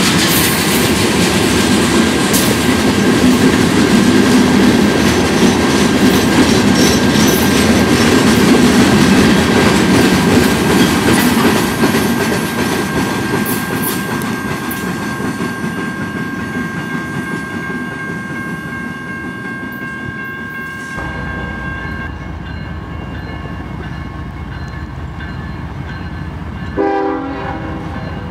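Freight train gondola cars rolling past on the rails: wheel rumble and clicks with a steady high whine, fading as the train moves away. A short train horn toot sounds near the end.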